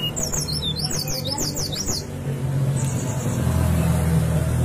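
Brown-chested jungle flycatcher (sikatan rimba dada coklat) singing a quick run of high, sliding whistled notes for about two seconds, then a short buzzy note. A steady low hum runs underneath.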